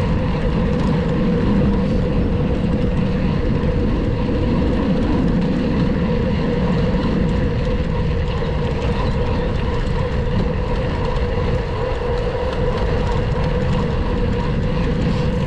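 Gravel bike rolling along on semi-slick Panaracer GravelKing tyres: steady tyre noise with a constant hum, and wind rumbling on the microphone.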